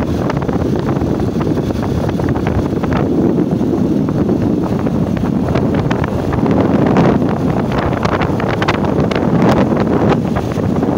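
Wind buffeting a phone's microphone on a moving motorcycle: a steady rushing with a dense low rumble underneath.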